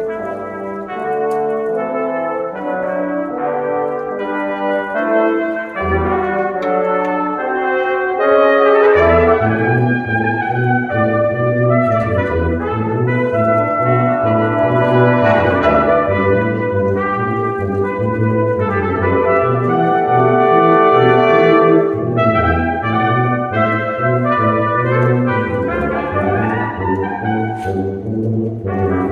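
Brass quintet of two trumpets, French horn, trombone and tuba playing a concert piece, several parts moving at once. The low bass line becomes steady and prominent about nine seconds in.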